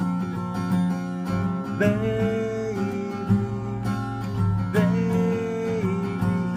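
Acoustic guitar strummed in a steady rhythm. A man's voice holds two long wordless notes over it, each sliding up into the note, about two and five seconds in.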